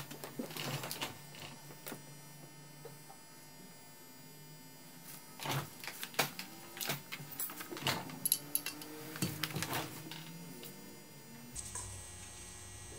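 Scattered light clicks, taps and rubbing from parts and a spray can being handled on a bare engine block during cleaning of the rear crankshaft seal area, with a faint steady hum under it in the first few seconds.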